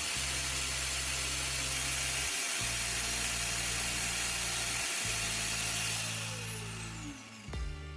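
Grinding disc grinding the tip of a copper rod that a drill spins against it: a steady hissing grind, then the disc's pitch falls as it winds down about six seconds in.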